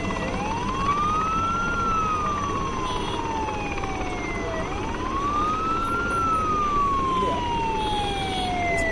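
Emergency vehicle siren in a slow wail: each cycle sweeps up quickly, then falls away over about three seconds, about twice through, over a steady noisy background din.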